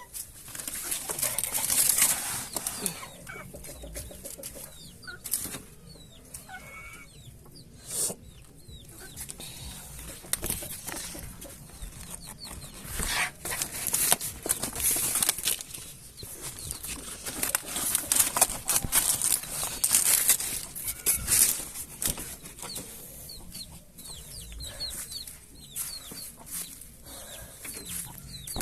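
Chickens clucking, with short high chirping calls and frequent rustling and scraping noises throughout.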